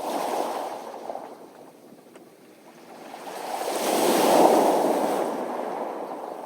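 Sea waves washing onto a beach of round pebbles. A smaller wash fades over the first second and a half. After a brief lull, a bigger wave swells to a peak about four seconds in, hissing over the stones, then ebbs away.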